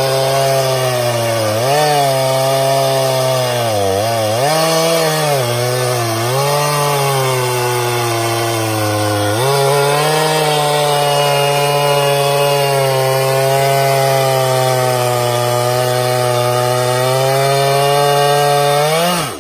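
Stihl MS391 two-stroke chainsaw cutting at full throttle through a thick hickory trunk. Its pitch dips and recovers several times in the first few seconds as the engine bogs under load in the cut, then it holds a steady high note. Near the end it drops off suddenly.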